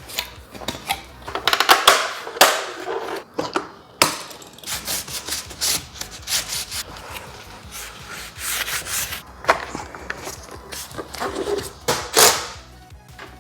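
Parts of a BMW X3 power-folding side mirror being handled and fitted back together by hand: irregular scraping and rubbing with a few sharp clicks.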